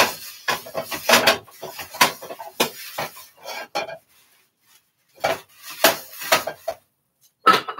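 A metal wok knocking and scraping on the stovetop while being wiped out with paper towels: a quick run of clanks and scrapes, a pause of about a second near the middle, then a few more.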